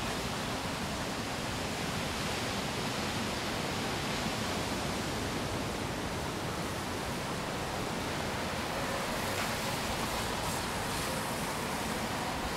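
Steady rushing outdoor noise, an even hiss with no distinct events.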